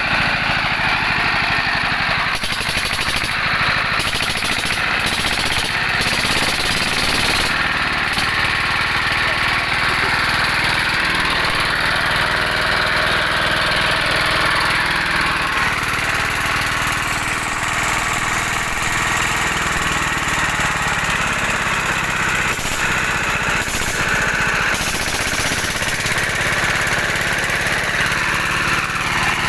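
Dompeng single-cylinder diesel engine running steadily, its engine speed shifting slightly a few times.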